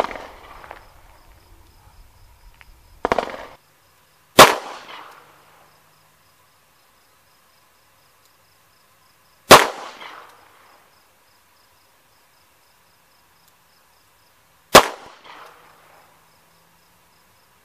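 Smith & Wesson Model 65 revolver firing .38 Special 158-grain lead rounds in slow aimed fire. Three loud shots come about five seconds apart, each trailing off over about a second. Two quieter sharp bangs come in the first three seconds.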